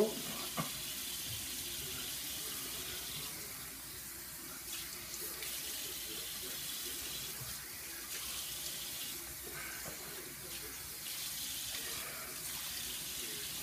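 Bathroom sink faucet running steadily, the water splashing through wet hair into the basin as conditioner is rinsed out.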